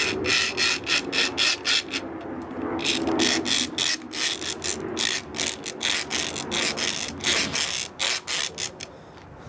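Hacksaw blade rasping back and forth in quick strokes on the shackle of a Kryptonite Keeper U-lock, with a short pause about two seconds in, tailing off near the end. The saw only breaks the lock's coating without cutting the steel.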